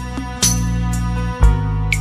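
Background music: held chords that change about half a second in and again near the end, over a steady beat of low kick-drum thumps and light ticks.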